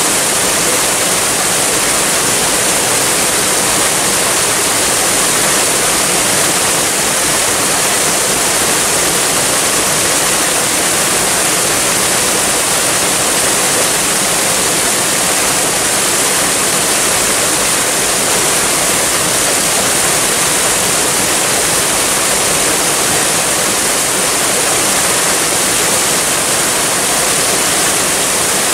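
Waterfall: water rushing steadily, an even hiss with no breaks or changes.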